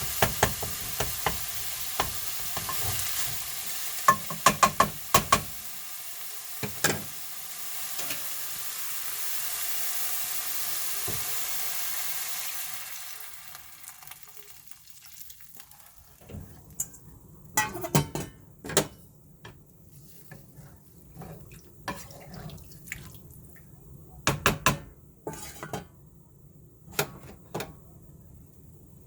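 Food sizzling in a frying pan while a utensil stirs it, with sharp clacks against the pan. The sizzle dies away about halfway through, leaving scattered knocks of utensils and dishes.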